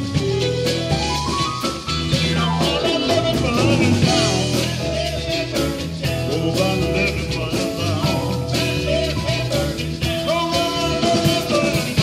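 Live rock and rhythm-and-blues band playing with bass, drums and electric guitar. A keyboard plays a rising run of notes in the first two seconds, then a man sings over the band.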